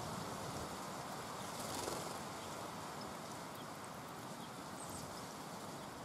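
Tits bathing in a shallow pool, with a soft splash about two seconds in over a quiet steady outdoor background. A few faint, short, high chirps come later.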